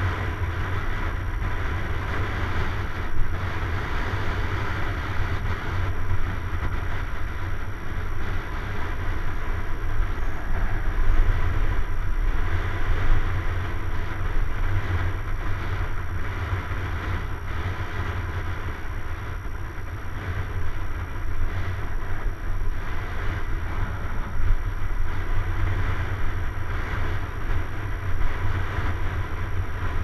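Wind buffeting a bicycle-mounted camera's microphone, with tyre rumble on asphalt as the bike rolls along a paved road, and a few knocks from bumps.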